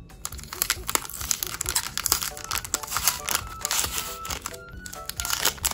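Plastic blind-bag packaging of a tin badge crinkling and tearing as hands pull it open, in a dense run of irregular crackles. Light background music plays under it.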